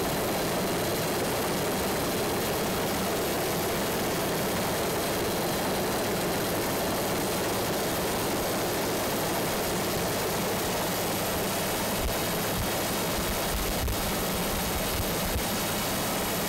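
Steady, dense engine and airframe noise of the aircraft filming from above, with a faint high whine over it.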